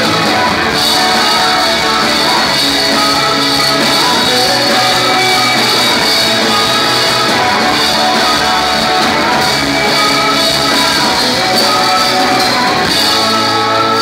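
Live rock band playing loudly, with layered electric guitars, drums and singing. Near the end the drum hits drop away, leaving a held, ringing chord.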